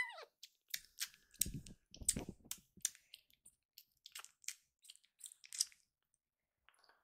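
Newborn kitten mouthing and suckling at a person's fingers: a run of small wet clicks and smacks, with soft handling thumps about one and a half and two seconds in. The end of a meow opens it.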